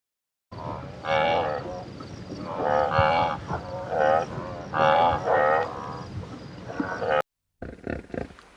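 Cattle mooing: a run of about five drawn-out calls, some overlapping, over a steady background hiss. The calls stop abruptly about seven seconds in.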